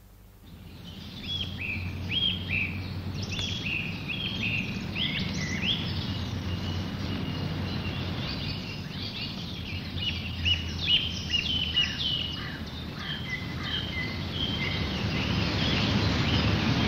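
Several songbirds chirping and singing, many short overlapping calls, starting about half a second in. Underneath is a steady low rumble of outdoor background noise that swells near the end.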